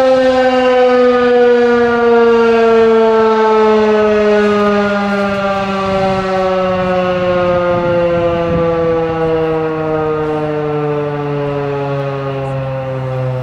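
Federal Signal 2001-130 electromechanical outdoor warning siren winding down, its loud howl falling slowly and steadily in pitch and gradually getting quieter as the rotor coasts to a stop.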